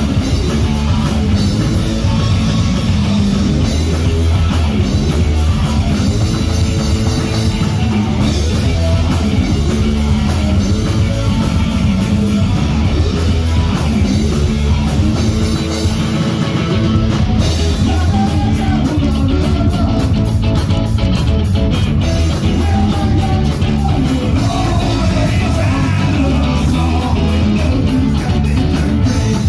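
Live punk-ska band playing: electric guitar, bass and drum kit, with singing. The bass drops out briefly a little past halfway, then the band carries on.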